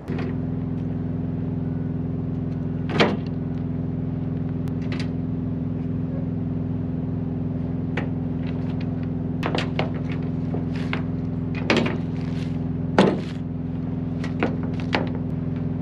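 A diesel engine on a semi truck idling steadily, with sharp knocks and clatters of gear being handled on the flatbed trailer's deck, the loudest a few seconds in and twice near two-thirds of the way through.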